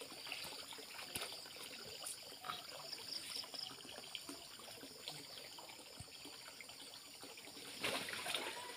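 Muddy water trickling and lapping with small splashes as a man wades and gropes through a drained creek by hand. A louder splash comes near the end.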